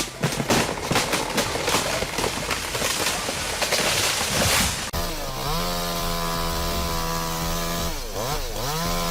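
A dense run of sharp cracks and crashing noise for about five seconds, then a chainsaw engine running steadily at high revs, dipping briefly near the end as the throttle is eased off and opened again.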